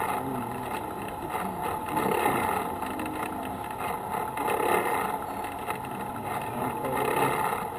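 A vehicle's engine running steadily as it creeps along at walking pace.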